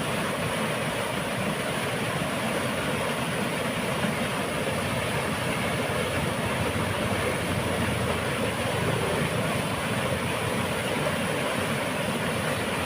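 Heavy water rushing through a dam, a steady, unbroken rumble.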